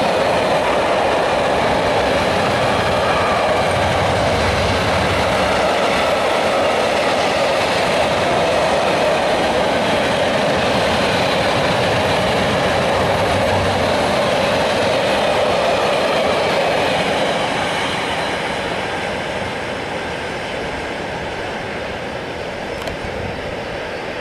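Freight train of tank wagons hauled by an electric locomotive passing: a steady noise of wheels running on the rails that fades after about seventeen seconds as the train draws away.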